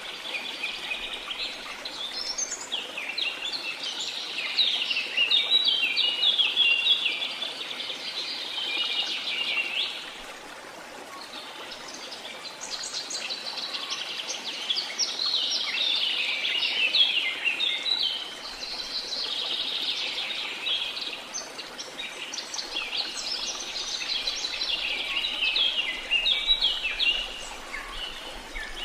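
Birds chirping and singing in a dense chorus over the steady rush of a waterfall. The bird calls come in two long bouts with a short lull between them.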